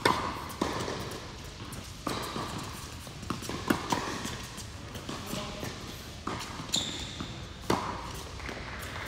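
Tennis rally on an indoor hard court: the ball struck by rackets and bouncing on the court, sharp pops at uneven intervals about a second apart, each with a short echo from the hall. A brief high squeak a little under seven seconds in.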